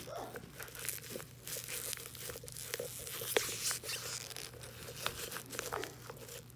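Rustling and scraping as fingers push yarn-wrapped dolls down into a hollowed-out pumpkin, with scattered small clicks and one sharp click about three and a half seconds in.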